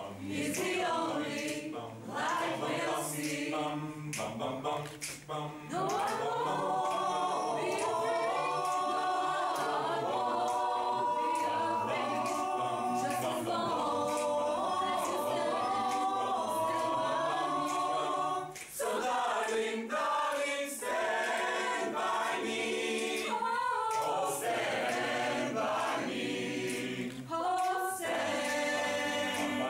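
Mixed choir of men and women singing a cappella. The first few seconds are short, clipped notes; from about six seconds in the voices hold long chords, and after a brief break past the middle the short rhythmic notes return.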